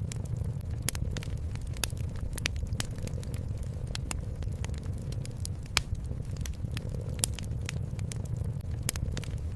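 Wood fire crackling, with sharp irregular pops several times a second over a low steady rumble.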